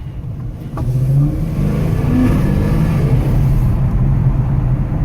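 Dodge Challenger's 5.7-litre Hemi V8 running through newly fitted JBA long-tube headers and mid-pipes. It gets louder about a second in as it revs, then holds a steady, loud exhaust drone.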